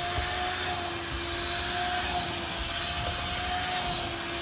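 Vacuum cleaner running steadily, a constant motor whine over a rushing air hiss, as it cleans dust and debris off a pickup truck's cab carpet.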